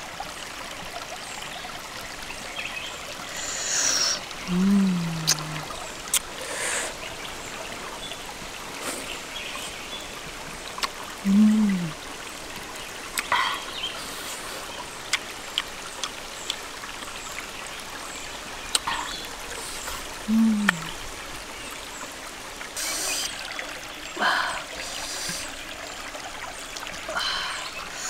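Shallow stream trickling steadily over rocks, with three short low hums of a person tasting food and scattered small clicks and smacks of eating.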